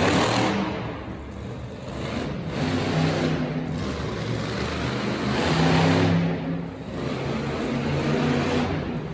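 Monster truck engine revving in repeated swells as the truck drives, loudest about six seconds in.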